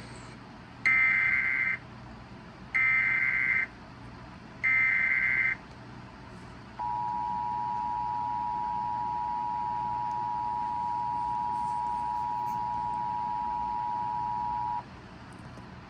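Emergency Alert System tones for a tornado warning. First come three short, identical bursts of SAME digital header data, each just under a second and about two seconds apart. About a second later the two-tone attention signal starts: two steady tones sounded together, held for about eight seconds, then cut off.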